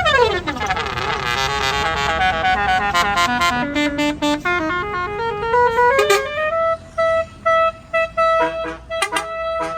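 Tour bus 'basuri' telolet musical air horn playing a melody: a run of quick stepped notes climbing in pitch, then a long held note broken by a few short gaps near the end.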